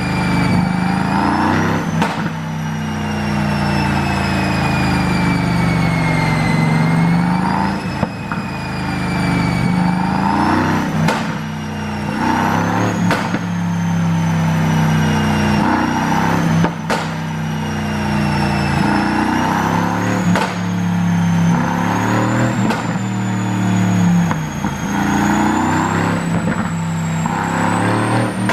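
Mercedes-AMG GT S 4.0-litre twin-turbo V8 running and revving up and down repeatedly on a chassis dyno, with a high whine that rises and falls with speed. Sharp cracks from the pop-tuned exhaust come every few seconds.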